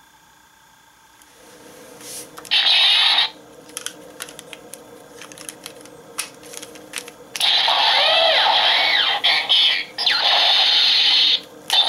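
Kamen Rider Kabutick Zecter toy playing its electronic sound effects through its small speaker: a short loud burst about two and a half seconds in, then a long, loud, noisy effect with sweeping tones from about seven seconds in, broken by brief gaps. Small plastic clicks of the toy being handled come in between.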